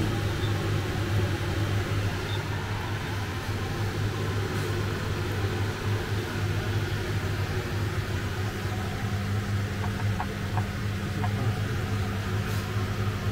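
A kitchen appliance running with a steady low hum over a hiss; a few faint light ticks about ten seconds in.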